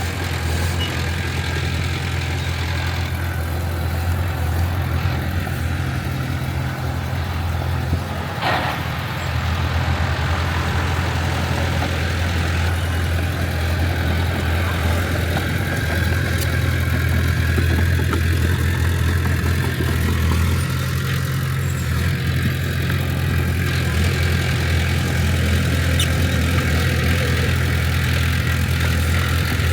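Diesel engine of heavy earthmoving machinery running steadily with a low drone. A single sharp clank comes about eight and a half seconds in.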